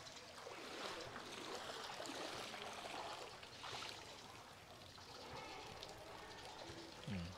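Faint, steady trickle of flowing floodwater, with a brief voice sound near the end.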